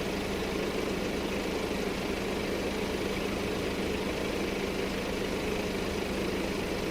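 A heavy construction-vehicle engine idling steadily, an even rumbling hum with no revving.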